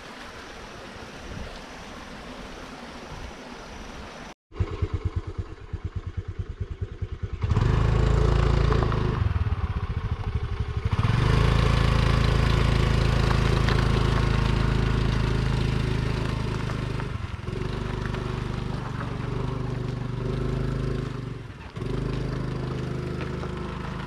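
Stream water rushing for the first few seconds. Then, after a cut, a Honda Activa scooter's engine putters and then runs loud and steady, labouring up a steep gravel climb that it can barely manage with a passenger.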